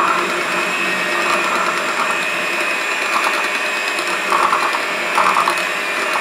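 Electric hand mixer running steadily, its twin beaters whipping buttercream in a glass bowl.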